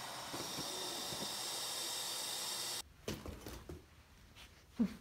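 A steady hiss cuts off abruptly a little under three seconds in. Soft rustling of yarn follows as it is handled in a plastic storage bin, with one sharp knock against the bin near the end.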